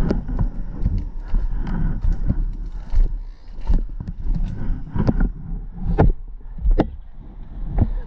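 Footsteps on rocky ground: irregular crunches and sharp knocks, roughly one or two a second, over a low rumble of wind or handling on the microphone.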